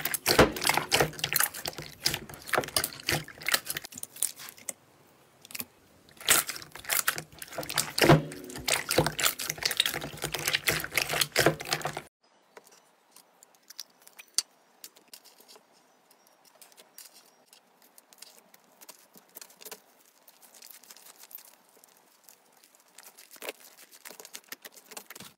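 Hands squeezing and kneading a large mass of clear slime in a glass bowl: dense wet squelching, popping and crackling, with a brief pause about five seconds in. About halfway through the sound drops suddenly to much quieter, sparse sticky clicks and soft pops of slime being pressed and pulled.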